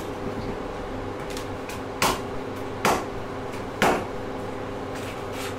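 A large knife chopping through roast porchetta, the blade knocking sharply on the cutting board three times about a second apart, over a steady low hum.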